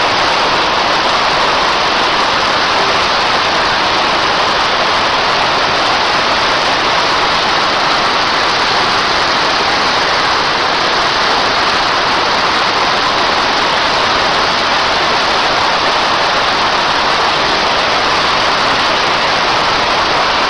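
Waterfall pouring: a loud, steady rush of falling water without a break.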